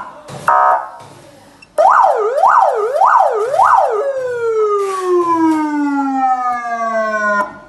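HB-113 electronic police siren sounding through its speaker as its tones are switched. A short buzzing tone comes first. About two seconds in, a fast rising-and-falling tone sweeps up and down four times, then changes to one long, slowly falling tone that cuts off suddenly near the end.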